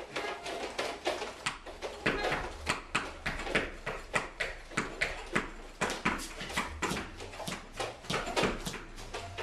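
Tap shoes clicking on a stage floor in an uneven rhythm, about two to three taps a second.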